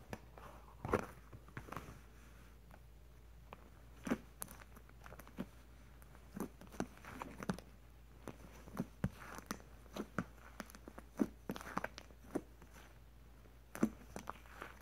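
Fluffy slime being squeezed and poked by hand, giving irregular soft pops and sticky crackles as air pockets in it burst.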